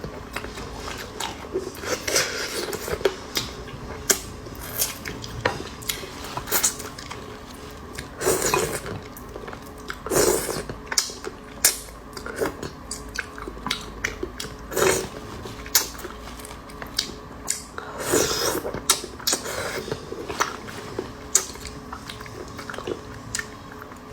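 Close-miked eating: chewing and biting, with many short clicks of utensils against dishes.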